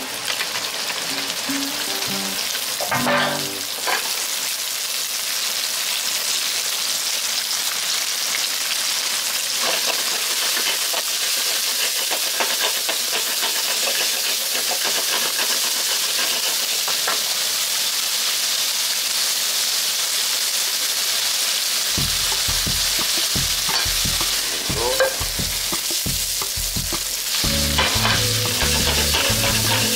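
Sliced pork frying in hot oil in a wok, a steady sizzle as it is stirred with chopsticks. Background music comes in near the end.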